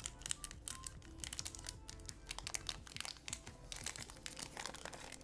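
Foil Pokémon booster pack wrapper crinkling and crackling as it is handled and opened, a dense run of sharp crackles.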